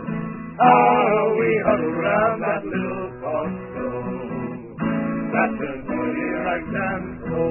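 Strummed acoustic guitar under men's voices singing a whaling folk song, part of its chorus.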